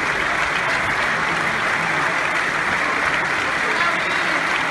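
Large audience applauding steadily, a dense unbroken clapping.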